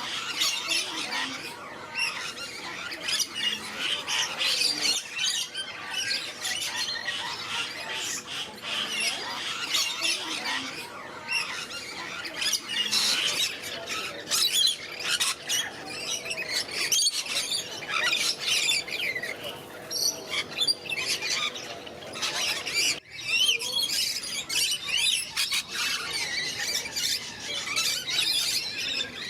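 Many parrots squawking and chattering together, a dense, continuous flock of short high calls.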